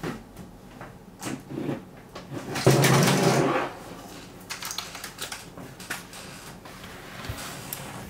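Mechanical keyboard keys clacking during a typing sound test, with scattered sharp key clicks. About three seconds in, a louder noise lasting about a second covers the clicks.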